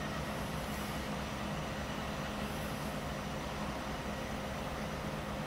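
Excavator's diesel engine running steadily at a construction site: a constant low engine hum with a few steady tones and no knocks or changes in speed.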